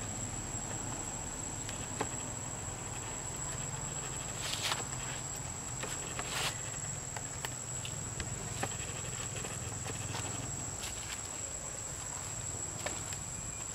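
A steady, high-pitched insect drone runs without a break. Over it come scattered clicks and crunches of footsteps on leaf litter and stone, with two louder rustling crunches about four and a half and six and a half seconds in.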